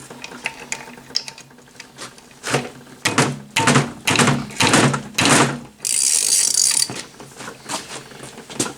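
Hand ratchet clicking on the 14 mm cylinder head bolts of a 2016 Polaris Ranger 900 XP engine, with four loud strokes in the middle as it is worked against bolts that are too tight to break loose. A brief hiss follows about six seconds in.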